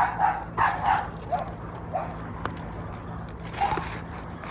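A dog barking in short, sharp yips: several in quick succession in the first second, a couple of softer ones after that, and one more near the end.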